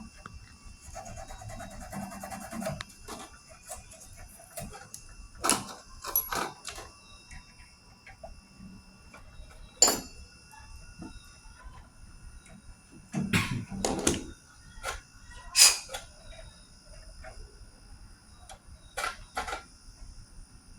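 Irregular sharp knocks and clatters, a few at a time, the loudest about ten seconds in and again about fifteen seconds in, over a faint steady high whine.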